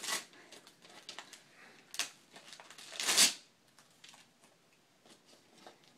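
Christmas wrapping paper crinkling and tearing as a small child's hands pull at a wrapped gift, in short crackles with one longer, louder burst of paper noise about three seconds in.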